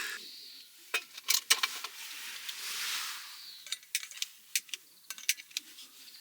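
A series of sharp metallic clicks and clinks, irregularly spaced, with a soft hiss that swells and fades between about two and three and a half seconds in.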